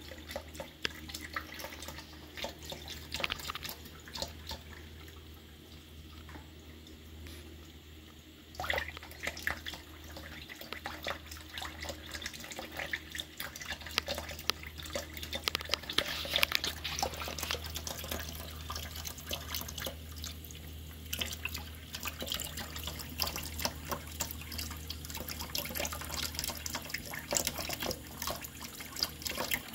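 Thin stream of water from a kitchen faucet running into a bowl in a stainless steel sink, with irregular dripping and splashing as a cat drinks from the stream. A low steady hum sits underneath.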